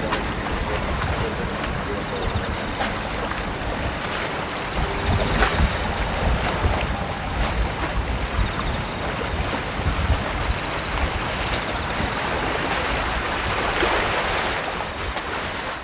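Steady rush of a landing jet airliner's engines, with gusts of wind buffeting the microphone.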